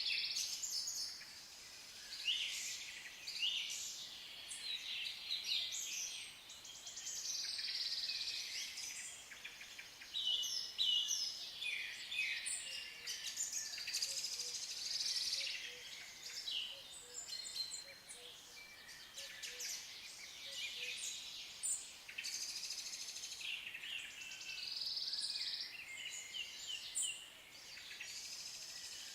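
Songbirds singing: a chorus of several birds whose short, overlapping song phrases continue without a break.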